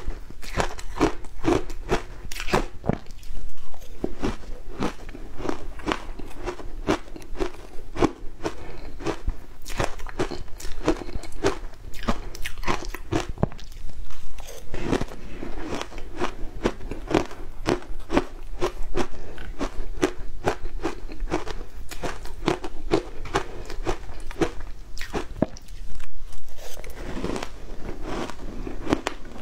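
Close-miked chewing of shaved ice: a rapid, steady run of icy crunches, with a few louder bites now and then as fresh mouthfuls go in.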